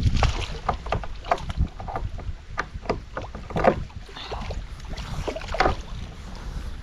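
Irregular small knocks and splashes of water around a fishing kayak, over a low rumble of wind on the microphone.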